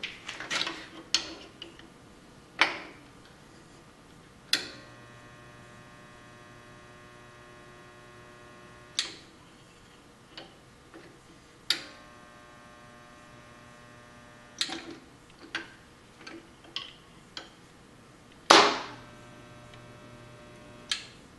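Resistance spot welder welding stainless steel sheet: three welds of a few seconds each, its transformer humming steadily while the current flows. Each weld starts with a sharp clack as the lever closes the copper electrode arms, the loudest about two-thirds of the way in, and short clicks and knocks of handling come in between.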